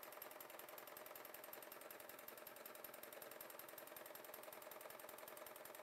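W6 N 5000 electronic sewing machine running steadily and faintly, its needle stitching in a fast, even rhythm during free-motion embroidery with the feed dog lowered.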